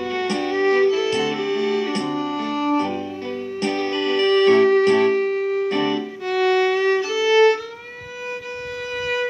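Violin playing a slow melody over a backing track of plucked guitar and a light, regular beat. Near the end the accompaniment drops back and the violin holds one long note.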